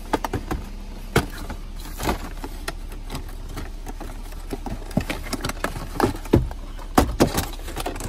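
Cardboard box and plastic packaging of an OBD2 code reader being opened and handled: scattered taps, knocks and scrapes, busiest in the second half.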